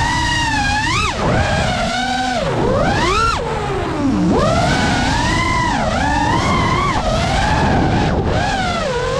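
FPV quadcopter's brushless motors whining, the pitch swooping up and down over and over as the throttle changes, dropping low about four seconds in. A rush of wind and propeller wash runs underneath.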